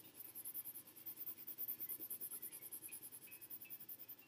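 Colored pencil scratching back and forth on sketchbook paper in quick, even strokes as an area is filled in with colour.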